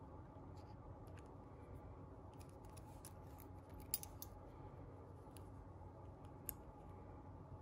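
Small steel pliers clicking and scraping against copper wire as a wrap is pinched shut around the brooch ring: a scatter of faint clicks, with a sharper click about four seconds in and another about six and a half seconds in.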